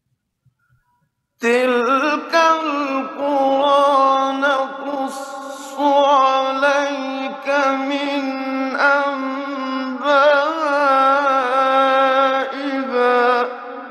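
A man's voice chanting a verse of the Quran in melodic recitation: one long, ornamented phrase with wavering turns in the pitch, starting after a silence about a second and a half in. It fades into an echo near the end.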